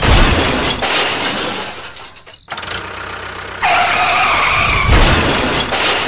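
Crash and shattering sound effect for a toy train colliding with a toy trailer: a sudden loud smash that tails off over about two seconds, then a second smash about three and a half seconds in with a held tone over it, sinking slightly in pitch.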